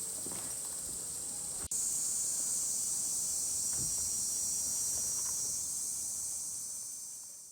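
Steady high-pitched chirring of insects, with a few faint knocks. It breaks off for an instant a little under two seconds in, comes back slightly louder, and fades out at the end.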